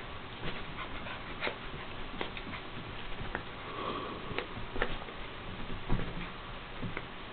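A dog chasing a toy in circles on carpet: irregular light taps and clicks of its scrambling, with sniffing and a brief breathy sound about four seconds in, and a louder thump just before six seconds.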